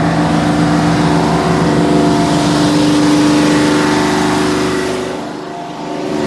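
Small tugboat's diesel engine running with a loud, steady drone, dipping briefly near the end.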